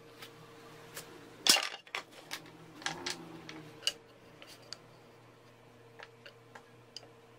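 Wooden boards and small blocks being set down and shifted on a plywood table-saw top: one louder clattering knock about a second and a half in, then scattered light clicks and taps.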